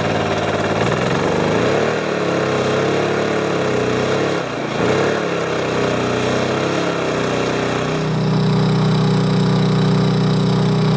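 Honda EU2000i inverter generator's small single-cylinder four-stroke engine running just after a cold start, powering a plugged-in electric space heater. Its engine speed wavers up and down, then a louder steady note sets in about eight seconds in.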